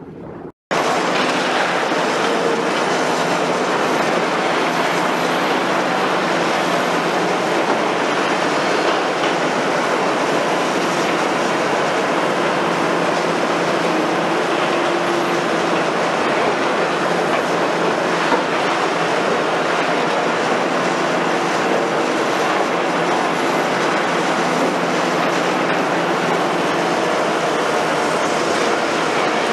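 Liebherr R960 demolition excavator working in concrete and steel rubble: its engine and hydraulics run under a continuous, steady din of scraping and grinding debris. The sound cuts in abruptly about half a second in.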